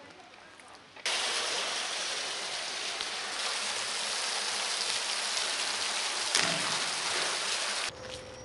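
Water pouring over a concrete spillway wall into a basin below: a steady rushing that starts abruptly about a second in and cuts off shortly before the end.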